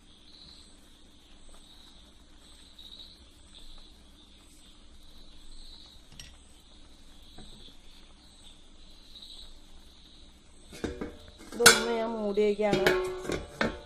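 Crickets chirping steadily, about one chirp a second, over a faint low hum. About eleven seconds in, a short spell of sharp clinks of kitchenware mixed with a person's voice, the loudest part.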